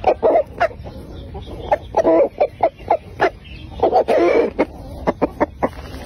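Rooster clucking in runs of short, quick notes, with two longer, louder calls about two and four seconds in.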